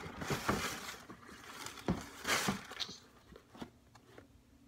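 Rustling and a few sharp light knocks as a sneaker is picked up and handled, in two stretches with a pause between.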